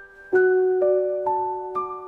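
Background music: soft piano, single notes struck about every half second and left to ring.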